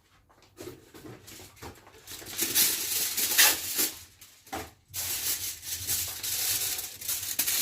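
Aluminium foil rustling and crinkling as it is handled, in two stretches with a short break between.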